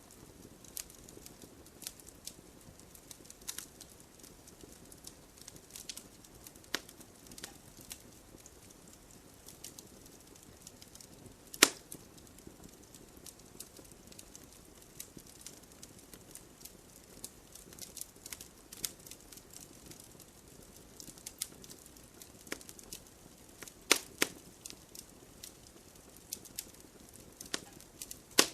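Wood fire crackling: scattered sharp pops and snaps over a faint steady hiss, the loudest pop about twelve seconds in and two close together about twenty-four seconds in.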